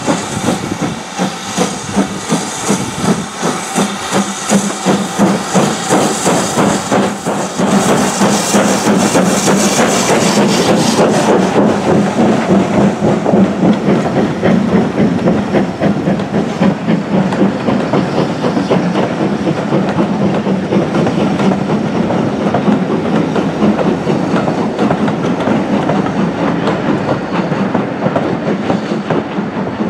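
Steam locomotive working, its exhaust beating rapidly and evenly, with a loud hiss of steam that fades after about ten seconds.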